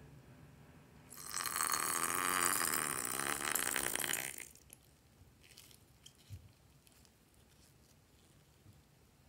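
Slime and air squeezed out through a rubber balloon's neck, sputtering and hissing loudly for about three seconds, then a few faint drips and small pops.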